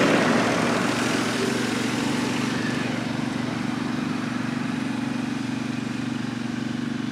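Engine of a small ride-on road roller (a baby roller) running steadily at a distance, with the rush of a passing road vehicle easing off over the first couple of seconds.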